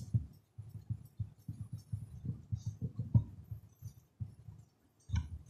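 Marker pen writing on a whiteboard: a quick run of short strokes and taps, with a sharper knock a little before the end.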